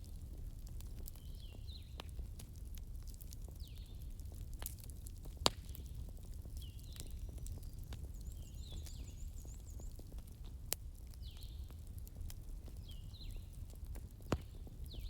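Wood fire crackling, with scattered clicks and a few sharper pops, the loudest about five and a half seconds in, over a low steady rumble. Birds call throughout with short chirps and quick downward-sweeping notes, repeating every second or so.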